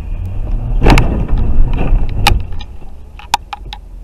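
Car collision heard from inside a dashcam car: a loud crunching impact about a second in, more crunching and scraping for about a second after, then a few sharp clicks near the end, over steady low road rumble.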